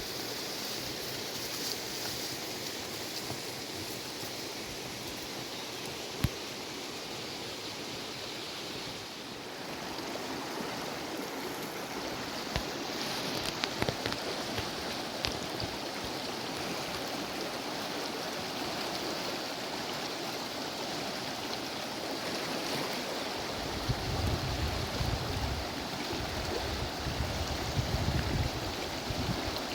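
Steady rushing noise of running water, with a few sharp clicks. A low rumble comes and goes from about three-quarters of the way in.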